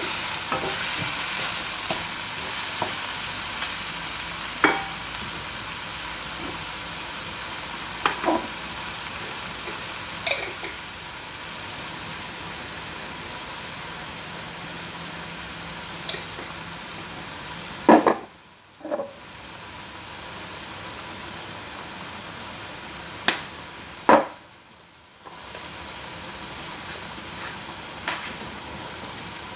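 Chicken pieces with carrots and green peas sizzling in a pan while being stirred, with a few sharp knocks of the spatula against the pan. The sizzle is a little louder in the first third, and it drops out briefly twice in the second half.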